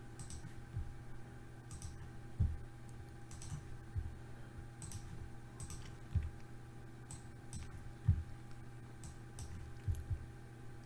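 Scattered, irregular clicks of a computer mouse over a steady low electrical hum.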